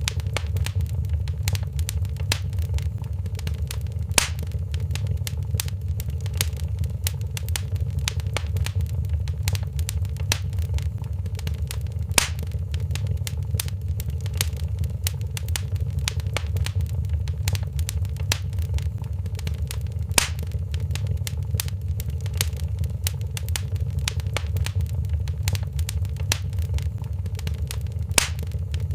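Wood fire in a fireplace crackling steadily over a low rumble, with dense small crackles and a louder sharp pop about every eight seconds.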